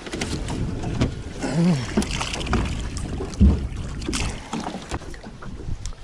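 Handling noises in a small fishing boat: irregular knocks, clicks and rustles, with one heavy thump about three and a half seconds in.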